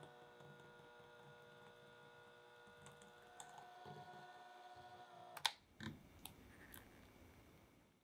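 Electric hand mixer running, its motor a steady whine as the beaters whisk chocolate buttercream in a glass bowl. The motor stops about five and a half seconds in with a sharp click, followed by a few light knocks.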